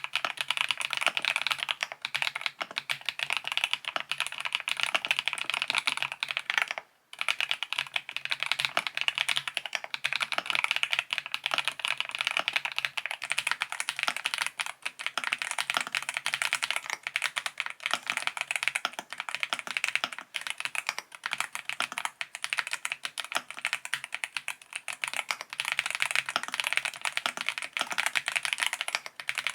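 Keys of a YUNZII B68 mechanical keyboard with a plastic case, typed on quickly and continuously: a dense run of keystroke clacks with one short pause about seven seconds in.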